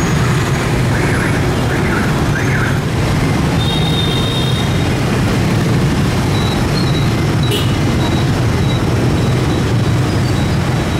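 Steady motorbike and road noise: a constant low engine drone under an even rush.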